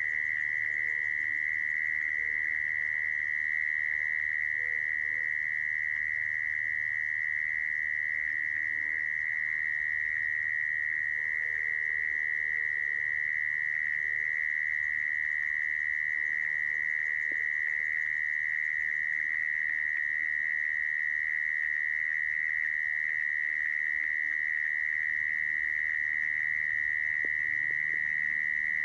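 Mole cricket song: a continuous, unbroken trill held at one high pitch and an even level.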